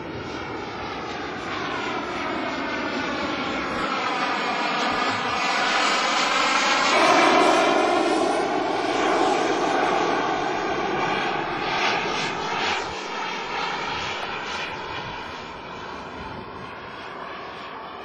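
Radio-controlled model jet flying past: its engine sound swells to a peak about seven seconds in, comes close again around twelve seconds, then fades away.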